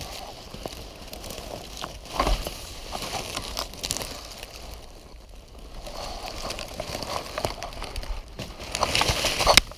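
Dry leaves and twigs crackling and rustling close to the microphone in irregular bursts, as someone moves or crawls through dry undergrowth; loudest about two seconds in and just before the end.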